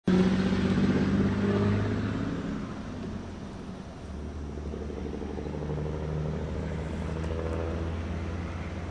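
Boat motor running with a steady hum, changing to a lower pitch about four seconds in and holding there.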